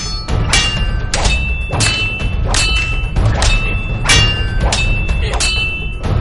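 Katana blades clashing again and again, about nine strikes roughly two-thirds of a second apart, each with a metallic ring. Background music with a low thudding bed plays underneath.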